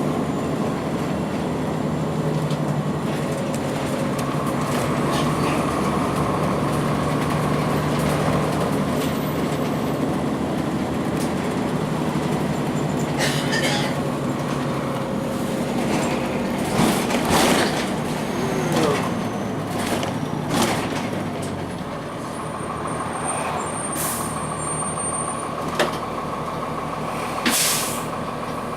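Transit bus under way, its Cummins ISC six-cylinder diesel running steadily, with a fainter whine that rises and falls in pitch. Several brief hisses and knocks break in, the loudest in the second half, typical of a bus's air brakes and body noise.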